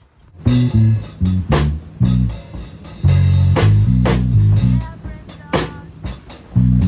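Background music with bass guitar, electric guitar and drums, starting suddenly about half a second in.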